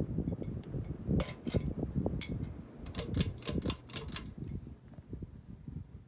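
Dynasty CF-HA52 hugger ceiling fan running at speed with a dense, rapid clicking and rattling over a low rumble. The sharpest clicks come between about one and four and a half seconds in, and the sound grows fainter toward the end.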